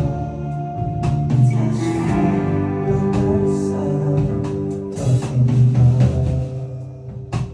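Live band music: held chords with sharp drum hits, the music dying down near the end.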